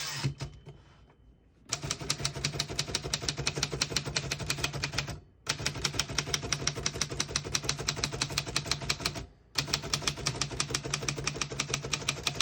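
Keys of a 1941 Royal Signet manual portable typewriter being struck in rapid, even typing: three runs of keystrokes, broken by two short pauses, as a line is typed out toward the right margin.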